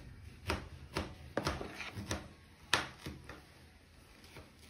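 A handful of light, irregular clicks and taps, most likely the spoon knocking against the ceramic mixing bowl, as crêpe batter drizzles off the spoon back into the bowl.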